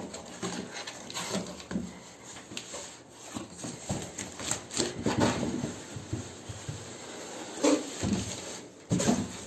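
Cardboard packaging being handled and opened: irregular rubbing, scraping and rustling with scattered knocks and clicks.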